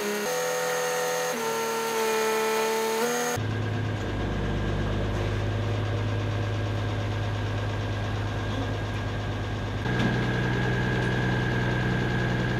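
Crane truck running. For about three seconds its engine and hydraulics give a whine that steps up and down in pitch as the crane is worked. Then it settles to a steady low idle hum, which rises slightly in pitch and gets a little louder about ten seconds in.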